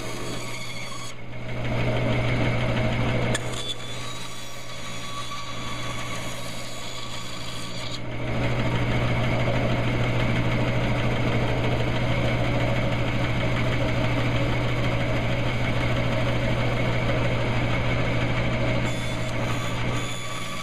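Bandsaw running with a steady low hum while it cuts a basswood block. It gets louder for about two seconds near the start and again from about eight seconds in until shortly before the end.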